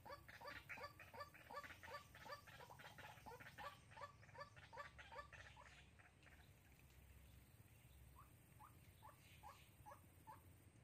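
White-breasted waterhen calling: a faint, fast series of short, falling notes, about three a second, that fades out about halfway through. Five more notes, spaced a little wider, come near the end.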